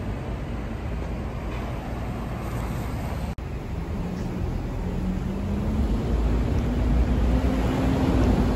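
Road traffic rumble, then a city bus approaching through the intersection, its engine hum rising slowly in pitch and getting louder from about halfway.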